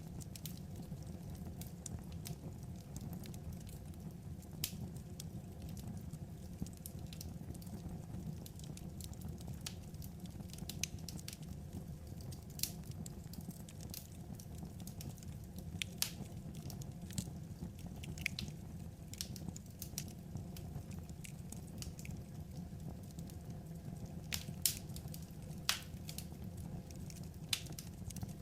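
Wood fire crackling: irregular sharp pops and snaps over a steady low rumble, with a few louder pops near the end.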